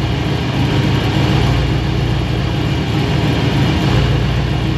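Silverado pickup's freshly cammed engine, fitted with an LT4 supercharger, idling steadily with no valve-train noise.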